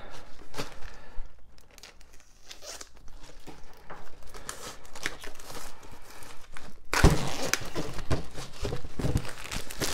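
Clear plastic shrink-wrap being torn and peeled off a boxed photo album: crinkling and crackling, growing louder about seven seconds in.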